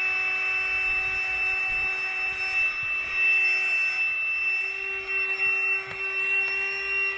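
Ainope cordless handheld car vacuum cleaner running at full speed: a steady high-pitched motor whine, its loudness wavering as the nozzle picks up sand from the car's interior.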